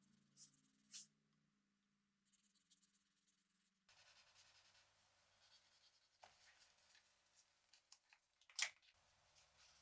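Faint scratching and rustling of toy packaging being handled, with a few sharp clicks; the loudest click comes about eight and a half seconds in.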